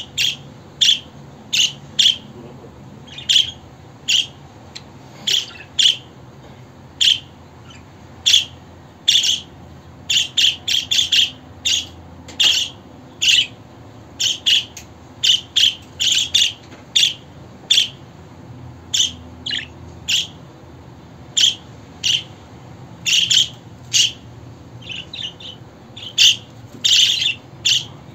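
Budgerigar giving short, sharp chirps in an uneven run, one to three a second, some in quick clusters, over a faint steady low hum.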